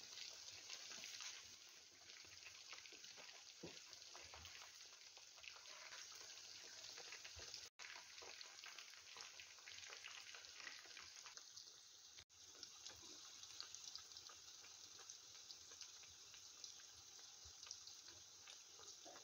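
Chicken wings deep-frying in hot oil: a faint, steady sizzle full of fine crackling pops, which cuts out briefly twice.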